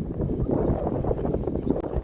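Wind buffeting the microphone, a steady low rumbling noise.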